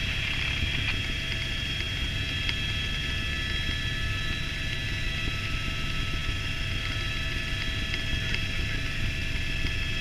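Helicopter in cruise flight, heard from inside the cabin: a steady turbine whine of several high tones over the low rumble of the rotor and engine.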